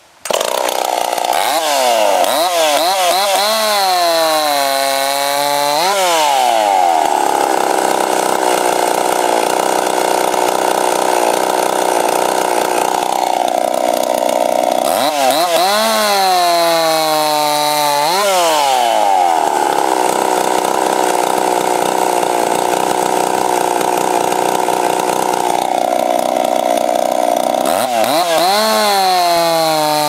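Competition chainsaw fitted with a hand-built race chain, running wide open and making three cuts through a wooden cant. In each cut the engine pitch sags under load and then climbs sharply as the chain breaks through. Between cuts it holds at a high, steady rev.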